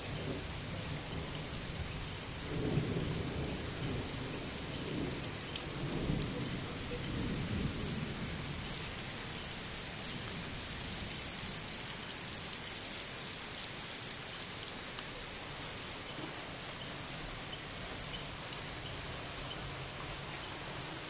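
Heavy rain pouring steadily onto paving, with low thunder rumbling twice, a few seconds in and again about six seconds in.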